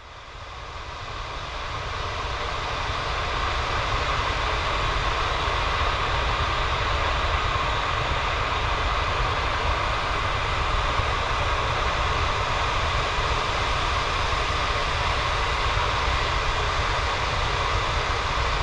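Natural-gas flare stack on a Marcellus well pad burning off gas: a loud, steady rushing noise over a deep rumble. It fades in over the first few seconds, then holds level.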